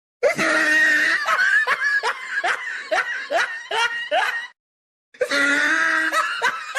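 A high-pitched laughing voice, a run of short rhythmic bursts, heard twice with a sudden cut to silence between the runs.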